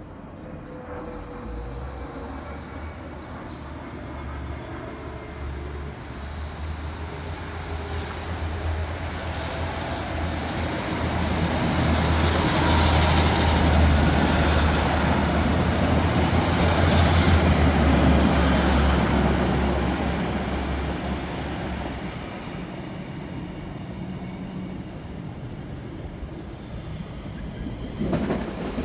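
Class 156 Sprinter diesel multiple unit moving through the platform: its underfloor diesel engines drone low while wheel-on-rail noise builds to a peak about halfway and then fades, with a thin high squeal over the loudest part.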